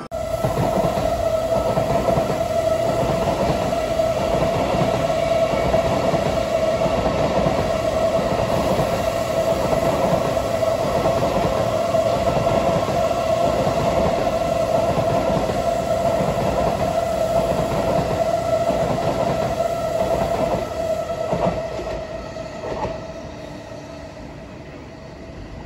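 An N700-series Tokaido Shinkansen bullet train running past at speed with a steady rushing noise and a steady whine. The noise fades away over the last few seconds as the train moves off.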